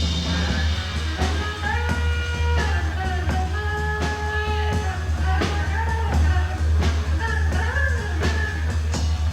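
Late-1960s rock band playing live in an instrumental jam: a lead instrument plays held notes that bend and slide in pitch over a steady heavy bass and drums.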